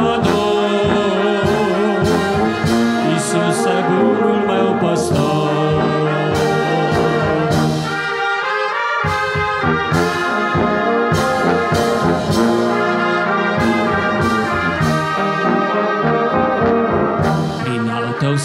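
Church brass band playing a hymn, trombones and trumpets sounding full sustained chords, with percussion strikes throughout. The low parts drop out briefly about nine seconds in.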